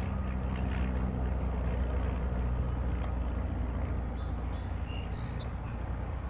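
Four Wright R-1820-97 Cyclone radial engines of a B-17G Flying Fortress droning steadily as the bomber climbs away after takeoff. A few short high chirps come in about three and a half to five and a half seconds in.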